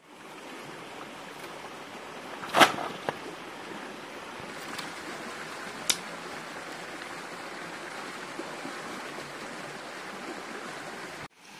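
Steady rushing of a nearby stream, with two sharp cracks: a loud one about two and a half seconds in and a smaller one about six seconds in.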